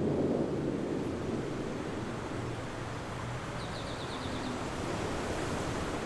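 Steady rushing, rumbling noise like wind, loudest in the first second and then settling a little lower. A quick run of about seven faint high ticks comes about halfway through.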